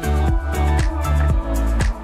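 Background music with a steady beat of about two beats a second over a strong bass line.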